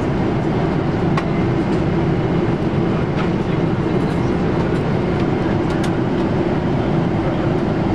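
Boeing 747-8 cabin noise in cruise: the steady rumble of airflow and engines, with a few faint clicks.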